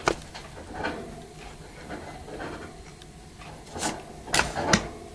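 Trading cards being handled: a sharp click right at the start, then a few soft clicks and rustles, with a small cluster of them about four seconds in as a card is taken away and the next picked up.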